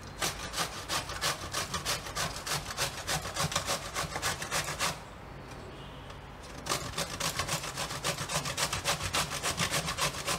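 Peeled bottle gourd rubbed down a stainless-steel box grater in quick, even rasping strokes, shredding the flesh. The strokes stop for about two seconds midway, then start again.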